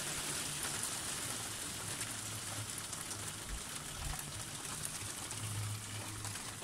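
Hail and rain falling in a light shower, a steady hiss with faint scattered ticks.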